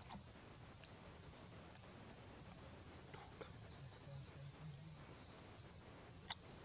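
Faint, steady, high-pitched insect drone, with one sharp click about six seconds in.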